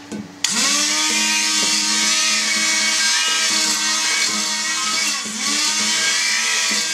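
Handheld immersion blender switched on about half a second in and running steadily in a glass jar of egg yolks, breaking them up. Its motor pitch dips briefly now and then as the blades load.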